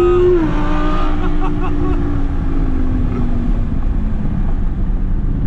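C8 Corvette's V8 heard from inside the cabin, running high at the end of a pull. Its note drops about half a second in and then winds slowly down as the car coasts, leaving steady road and wind noise.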